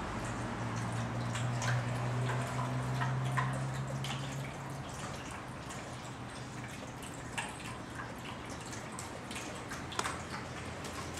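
Light, irregular clicks and taps from kittens playing on a hard smooth floor, with a sharper tap about ten seconds in. A low steady hum fades out about five seconds in.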